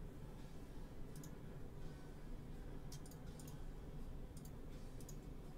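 Quiet room tone with a few faint, scattered short clicks.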